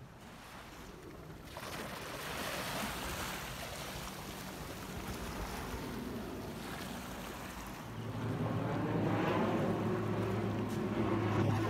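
An aircraft passing overhead: a rushing drone builds, and about eight seconds in a steady low engine hum joins it and grows louder.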